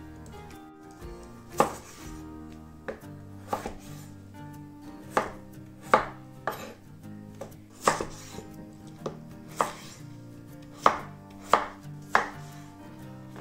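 Kitchen knife cutting raw peeled potatoes into chunks on a wooden cutting board: a sharp knock of the blade on the board every second or so, at an uneven pace, the first about one and a half seconds in.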